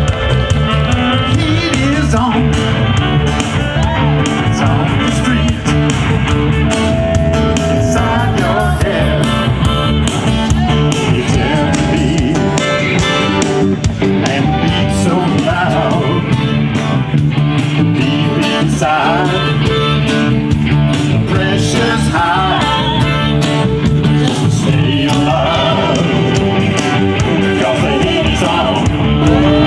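Rock-style music with guitar and a singing voice, playing steadily.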